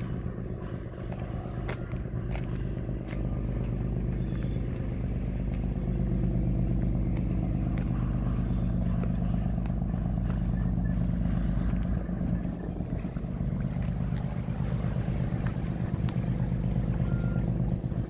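A large engine running steadily, a low hum that holds an even pitch throughout and grows louder about three seconds in.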